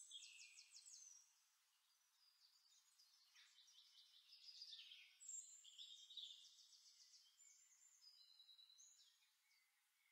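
Faint forest birdsong: several birds chirping and singing, with quick trills.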